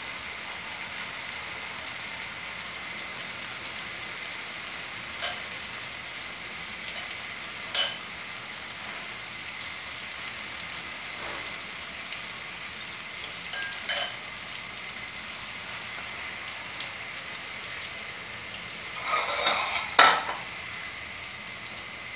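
Egg-dipped pav bread rolls sizzling steadily in ghee in a frying pan. A few brief clinks break in, and there is a louder clatter about twenty seconds in.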